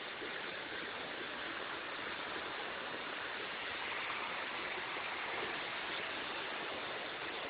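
Floodwater of a river in major flood rushing past and under a bridge: a steady, even rush of water with no distinct splashes.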